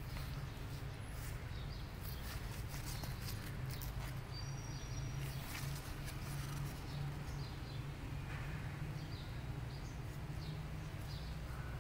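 Cucumber leaves rustling and crackling as a hand pushes through the vines, over a steady low hum, with a brief high bird chirp about four seconds in.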